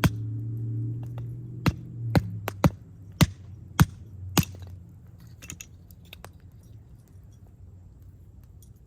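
A string of sharp, irregular knocks or cracks, the loudest about three and four seconds in, growing fainter after about five seconds. A low hum is heard under the first few seconds and fades out.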